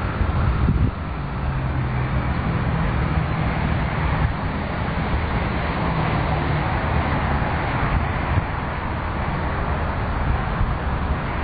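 Wind buffeting the microphone over a steady outdoor rumble, with a low steady hum through the first half.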